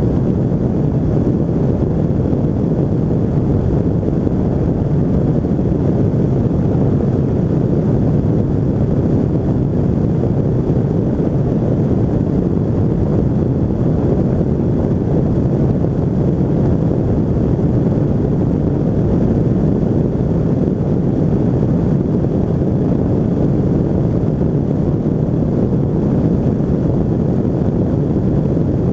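Quantum 582 flexwing microlight in flight: its Rotax 582 two-stroke engine and propeller running steadily, mixed with heavy wind rush on the microphone.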